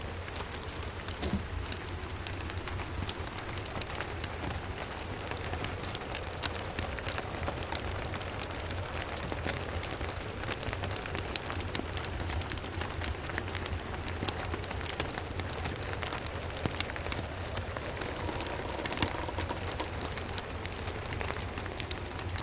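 Steady rain with a wood fire crackling: an even hiss of rain dotted with many small, sharp crackles, over a low steady rumble.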